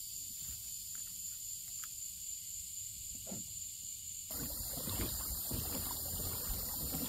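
Kayak on the water: low wind rumble on the microphone with a steady high hiss and a few faint ticks. About four seconds in it switches abruptly to louder water and movement noise around the boat.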